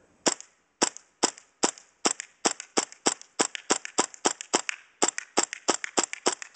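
KJW KC02 gas blowback airsoft rifle, powered by propane, fired in quick semi-automatic shots: sharp pops, the first few about half a second apart, then speeding up to three or four a second.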